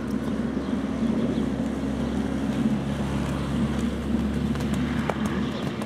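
Steady low hum of an engine running, with wind rumble on the microphone.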